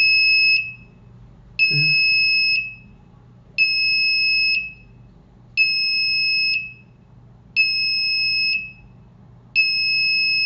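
The FT100-B612 temperature controller's buzzer sounding at the end of its program: a steady high electronic beep about a second long, repeating every two seconds.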